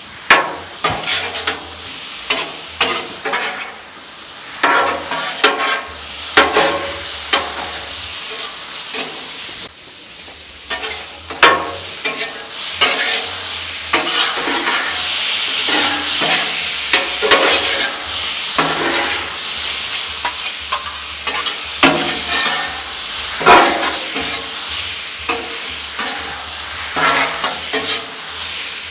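Sliced beef and broccoli frying on a Blackstone steel flat-top griddle while being stirred together, with frequent sharp scrapes and clacks of metal spatulas on the steel over a steady sizzle.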